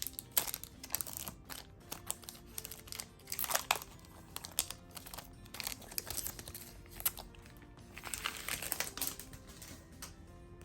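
Yu-Gi-Oh! booster pack wrapper crinkling and rustling in the hands, with irregular crackles and clicks as the pack is handled and the cards come out. Faint background music with steady tones plays underneath.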